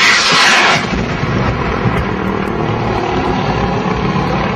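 Military helicopter's engine and rotor running with a steady drone. A loud burst of noise lasts under a second at the start.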